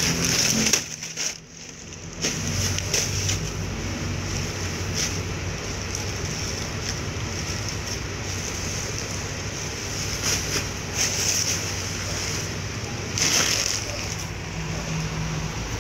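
Clear plastic bag crinkling and rustling as it is handled, in short crackly bursts over a steady background hiss and low hum.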